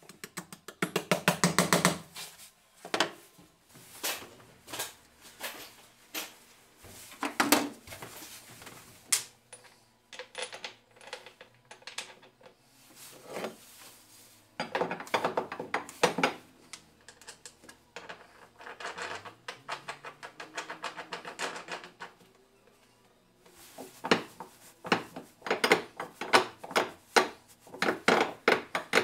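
Small ball-peen hammer tapping quickly on a steel bolt end on an iron brake plate, in a rapid run of light strikes, followed by scattered metal knocks and further runs of quick taps and clinks as the forged iron brake parts are worked.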